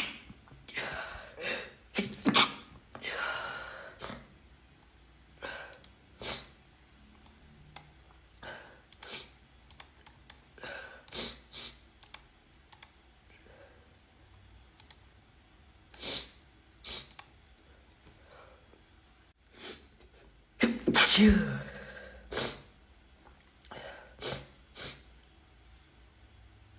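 A person sneezing again and again, short sharp sneezes at irregular intervals with quiet breaths between. The loudest, a longer voiced sneeze, comes about three-quarters of the way through.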